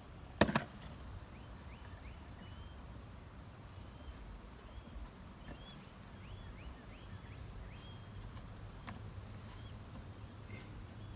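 A single sharp knock about half a second in, over a low steady rumble, with small birds chirping again and again throughout.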